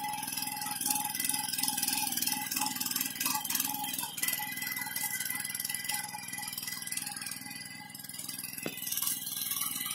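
Honda GX200 single-cylinder petrol engine of a power weeder running steadily while its rotary tines till the soil.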